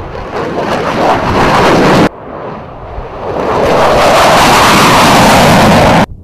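Jet engine noise from fighters at takeoff power: a single-engine F-16 climbing out, cut off suddenly about two seconds in, then the twin engines of an F-15E Strike Eagle lifting off, swelling to a loud, steady roar that cuts off abruptly near the end.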